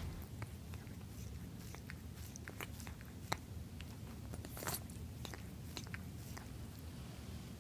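A cat's mouth sounds close up: irregular small wet clicks and smacks, the sharpest a little after three seconds, with a brief scratchy noise near the five-second mark.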